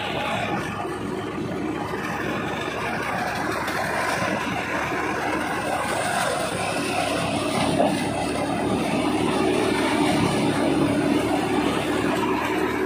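Tractor-driven paddy thresher running steadily under load: the Powertrac Euro 50 tractor's diesel engine and the threshing drum running together as rice straw is fed through and blown out of the chute. One brief knock comes about eight seconds in.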